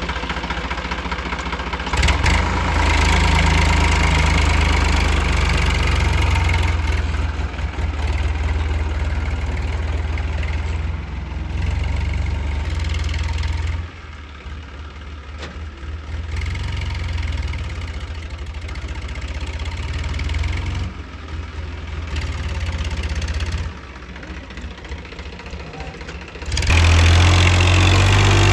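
Diesel engine of a JCB 3DX backhoe loader running while working, its loudness and load rising and falling several times, with a louder stretch near the end.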